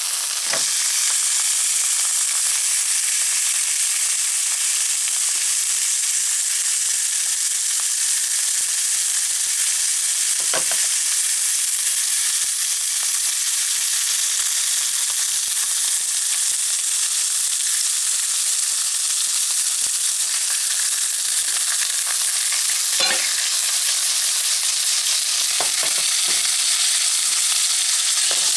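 A scored pork belly slab frying in an oiled nonstick pan: a steady, loud sizzle of meat in hot fat, with a few faint knocks as it is moved about.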